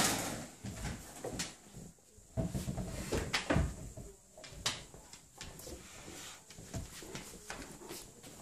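Large black dog moving about on a hardwood floor: scattered knocks, clicks and thumps of its paws and body, loudest between about two and a half and four seconds in.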